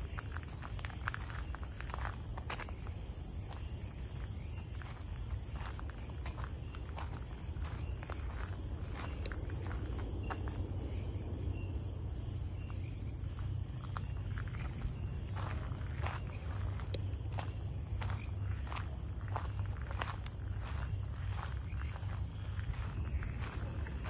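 A steady, high-pitched insect chorus shrilling without a break, with the footsteps of someone walking along the trail ticking about twice a second beneath it, over a low steady rumble.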